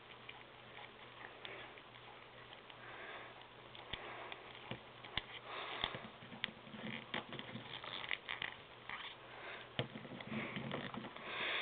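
Faint scattered clicks and rustles of a plastic action figure being handled and its jointed head, arms and legs turned, with sniffing and breathing close to the microphone.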